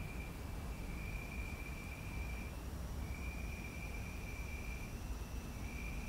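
Crickets in a tree trilling, one steady high-pitched trill that breaks off briefly about three times, over a low background rumble.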